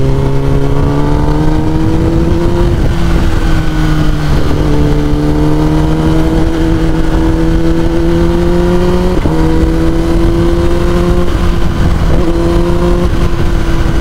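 Kawasaki Ninja ZX-10R's inline-four through an Akrapovic full-system exhaust, running while being ridden under light throttle. Its pitch climbs slowly and drops at several gear changes, most plainly about nine seconds in.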